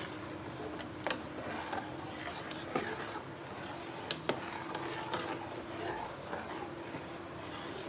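Metal ladle stirring thick milk kheer in an aluminium pot, with a few sharp clinks as the ladle knocks the side of the pot, over a steady background hiss.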